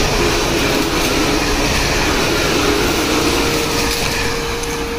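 An electric express train passing through a station at speed: a continuous rushing of wheels and running gear with a steady motor whine that rises a little about three seconds in.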